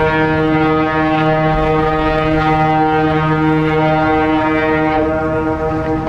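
Ship's horn of the cruise ship MS Hanseatic Nature sounding one long steady blast, a deep tone rich in overtones. A lower second note sounds with it for about the first four seconds.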